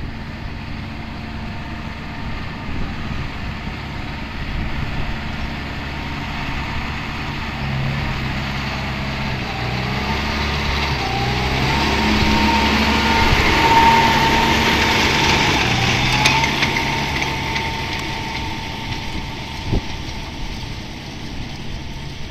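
John Deere 6140M tractor running with a round baler in tow: a steady engine drone with a whine from the machinery. It grows louder toward a peak a little past the middle and then fades again.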